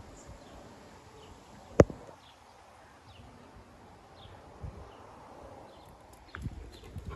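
A single sharp clank about two seconds in, over a quiet outdoor background with birds chirping faintly and repeatedly.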